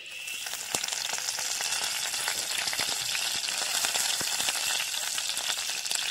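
Curry leaves frying in hot coconut oil in a clay pot: a steady sizzle full of small pops, building up over the first second.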